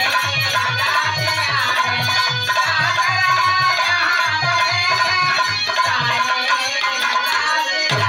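Dholak and harmonium playing folk music: the harmonium holds steady chords over the dholak's low bass strokes, about three a second, with a voice singing along.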